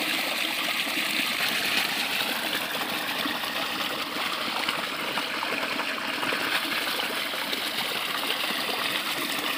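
Irrigation water gushing steadily from a pipe outlet into a concrete tank and spilling over into a field channel.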